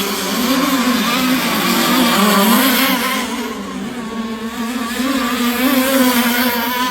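Twin 30cc two-stroke gas engines, modified Zenoahs, of an RC rigger racing boat running hard, their note wavering up and down in pitch.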